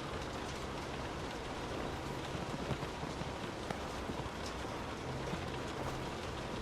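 Steady rain falling, heard from indoors: an even hiss of rainfall with scattered individual drops ticking on a surface.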